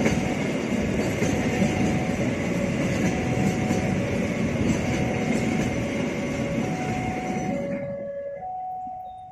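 Freight train of empty flat wagons rolling past close by, a steady noise of steel wheels on rail. The train noise cuts off sharply near the end, leaving an electronic warning tone alternating between two notes.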